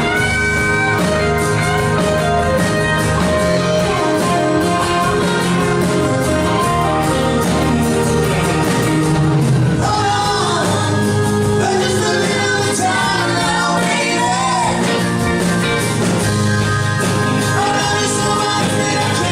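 Live rock band playing, with a singer's voice over the instruments; the vocal line stands out more from about ten seconds in.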